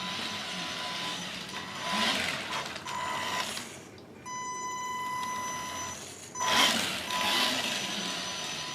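Tamiya Suzuki Jimny RC car driving on a LiPo battery: a steady high electric whine from its motor and speed controller, with louder bursts of gear and tyre noise as it speeds up about two seconds in and again past six seconds.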